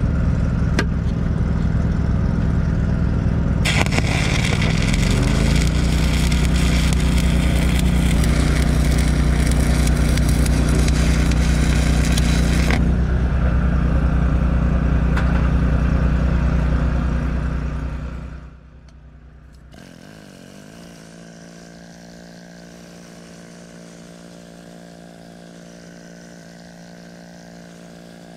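A 7018 stick-welding arc crackling for about nine seconds, starting about four seconds in, over a running engine that speeds up as the arc strikes. About five seconds after the arc stops, the engine drops back to a much quieter idle hum.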